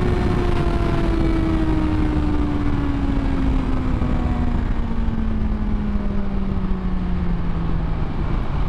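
BMW S1000XR inline-four motorcycle engine coasting off the throttle, its note falling steadily in pitch as the bike slows from high speed, under heavy wind rush on the rider's microphone.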